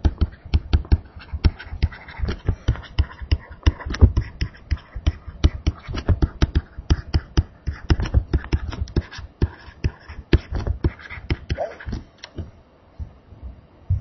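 A stylus tapping and scratching on a tablet screen as a handwritten equation goes down: a dense run of irregular clicks and low knocks that stops about twelve seconds in.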